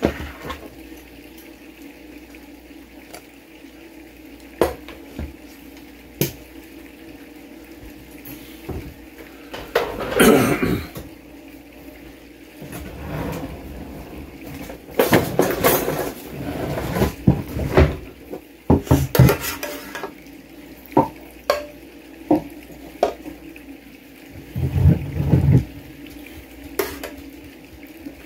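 Metal tongs and a ladle clinking and scraping against ceramic plates and a metal roasting pan as chicken and toast are served and pan juice is ladled out. Scattered single clinks at first, then busier clattering through the middle and latter part.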